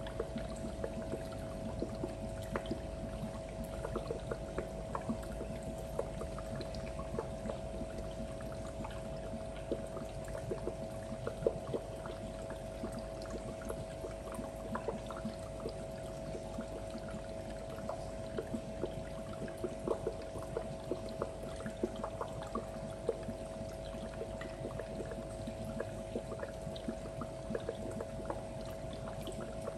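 Aquarium filter running: water pouring and trickling steadily, with a steady hum and scattered small ticks throughout.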